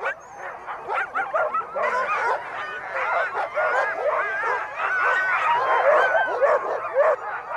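Many harnessed sled dogs barking, yelping and howling together in a continuous, overlapping chorus.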